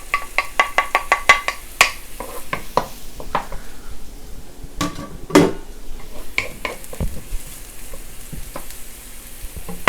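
Ginger, green onion and garlic sizzling gently in a little oil in a wok while a spatula stirs them. A quick run of clinks against the wok comes in the first two seconds, and a couple of louder knocks come about halfway through.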